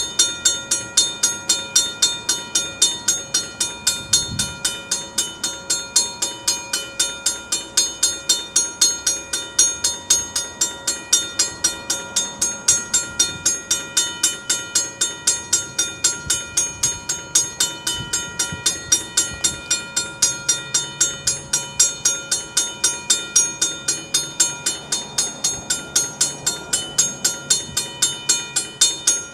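Safetran second-generation mechanical railroad crossing bell ringing continuously, its clapper striking the gong in an even rhythm of about two to three strokes a second, each stroke ringing on into the next. It is sounding because the crossing is stuck on: a fault in the crossing warning.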